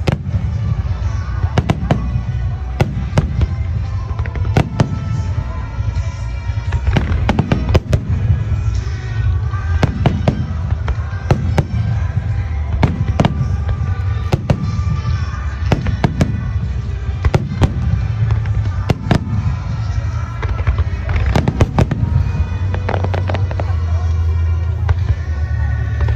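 Aerial fireworks bursting in rapid succession, sharp bangs about one to two a second with short echoing tails. Music with a heavy steady bass plays underneath.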